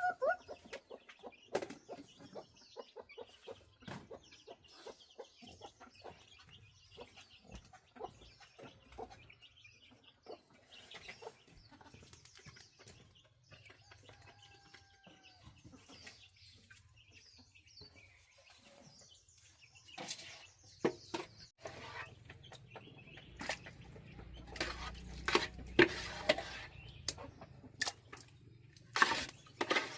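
Domestic chickens clucking, with scattered clicks and knocks that become louder and more frequent in the last third, over a low rumble.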